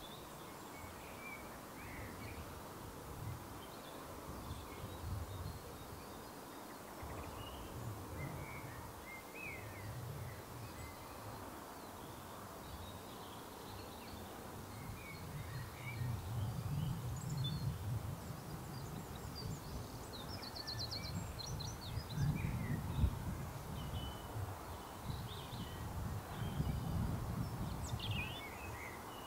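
Scattered bird chirps over a low, uneven rumble that grows louder about halfway through.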